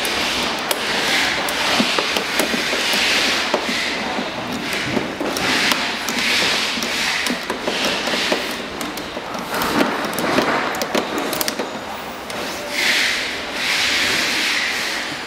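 Hand tools scraping and rasping against the plastic chassis and gearbox of an electric ride-on toy buggy, in repeated strokes of about half a second to a second, with small clicks in between.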